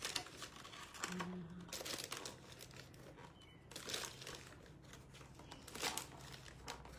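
A plastic flour bag crinkling irregularly as it is handled and tipped to pour wheat flour into a plastic container.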